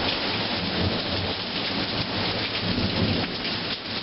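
Rain pouring down steadily in a thunderstorm, with a low rumble of thunder underneath.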